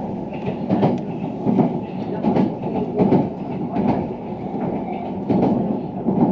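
Train running along the track, heard from inside the carriage: a steady rumble with repeated clacks about once a second as the wheels pass over the rail joints.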